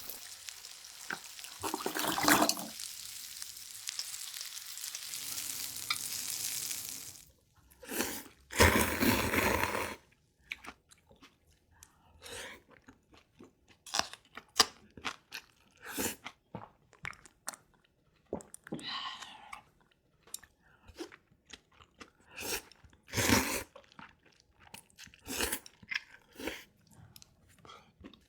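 Close-up eating of Korean beef offal: after a steady hiss in the first seven seconds, a long run of short, separate chewing and crunching sounds.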